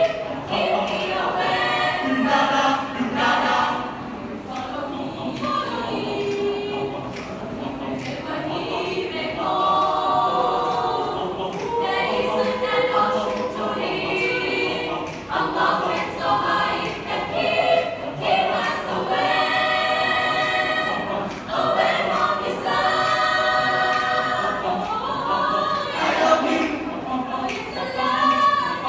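A choir singing in harmony, with long held chords that change every few seconds.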